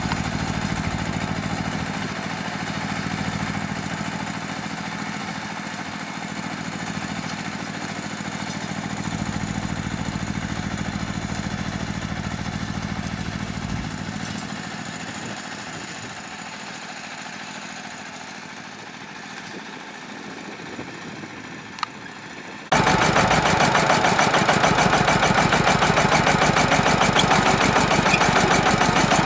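KRT 140 small tractor's engine running steadily while it pulls a plastic-mulch laying rig. The sound fades back through the middle, then about 23 seconds in it jumps suddenly to much louder and closer, with a fast, even chugging.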